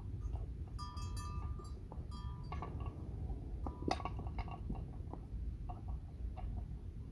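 A livestock bell clinking and ringing irregularly as a grazing water buffalo moves, with a few sharper knocks around the middle, over a steady low rumble.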